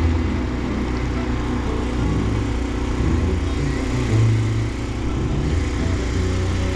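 A small engine running steadily with a low drone, a little louder about four seconds in.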